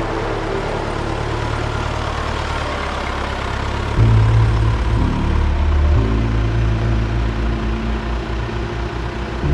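Engine of working machinery running steadily, then louder about four seconds in, its note shifting again about one and two seconds after that.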